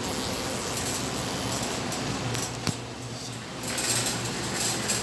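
Shopping cart rolling through a store, its wire basket rattling lightly over a steady hum of store background noise, with one sharp click about two and a half seconds in and the noise growing louder near the end.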